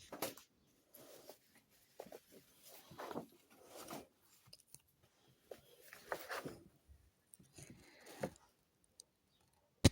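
Faint, scattered rustling and scraping of paper as the pages of a book are handled and turned.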